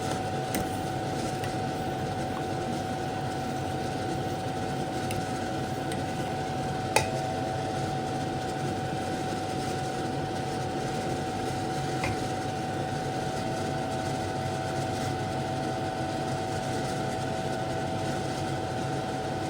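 Steady machine hum with a constant whine, broken by a few light clicks, the sharpest about seven seconds in.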